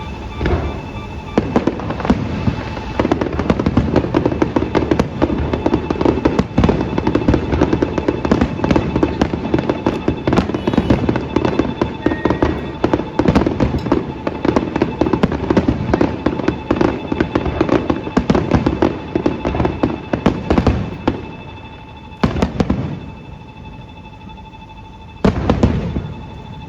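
Fireworks bursting overhead in a rapid, continuous barrage of bangs and crackles, thinning out after about twenty seconds to two last bursts near the end.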